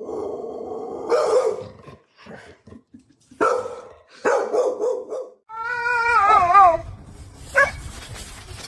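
A dog vocalizing in a string of drawn-out barks and howl-like calls. One call about six seconds in wavers up and down in pitch, and a short yip comes near the end.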